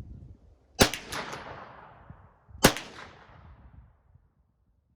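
Kel-Tec Sub-2000 Gen 2 9mm carbine firing two shots about two seconds apart. Each shot is a sharp crack that trails off over about a second.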